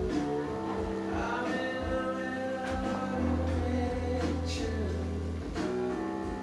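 Background music: a song with singing over held bass notes and instruments.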